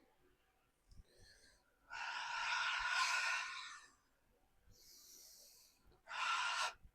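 A person breathing deeply: a long, loud exhale lasting nearly two seconds, a softer, higher-sounding inhale, then a shorter forceful exhale near the end.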